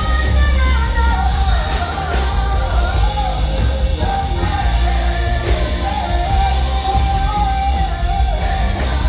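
A live band with a lead singer performing a song, the voice carrying a wavering, sustained melody over heavy, steady bass.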